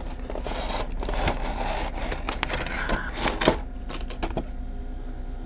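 A cardboard box and a clear plastic blister tray being handled and pulled apart: irregular rustling, scraping and light plastic clicks.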